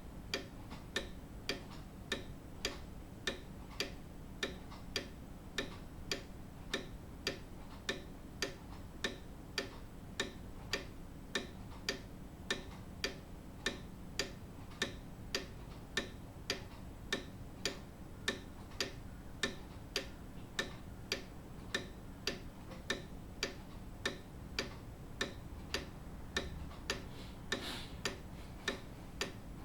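Grandfather clock ticking steadily, evenly spaced sharp ticks a little faster than one a second.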